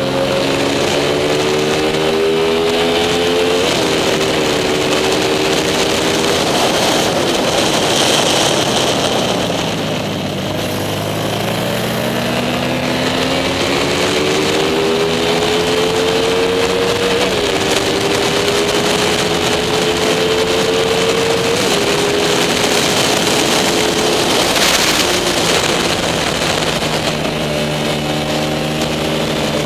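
Racing motorcycle's engine recorded onboard, its pitch climbing under acceleration and dropping sharply at upshifts, about four seconds in and twice more later. Near the middle the pitch falls as the bike slows for a corner, then climbs again, with wind noise over the microphone.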